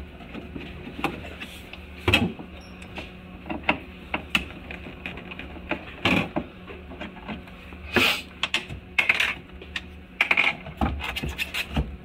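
Scattered clicks and knocks of a screwdriver on screws and of hard plastic parts being worked loose, as a refrigerator's damper and air-duct housing is unscrewed and taken out. A steady low hum runs underneath.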